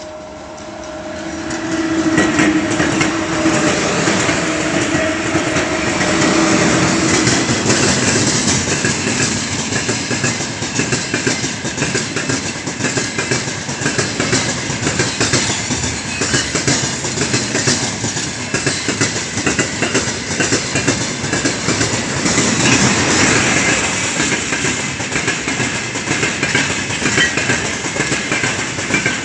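2ES5K 'Ermak' electric locomotives and a long mixed freight train passing close by. A steady two-note hum fades after about six seconds, then the wagon wheels keep up a continuous clickety-clack over the rail joints.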